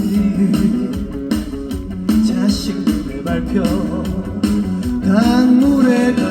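A live band plays a trot song through the stage PA, a guitar carrying the melody between the singer's lines.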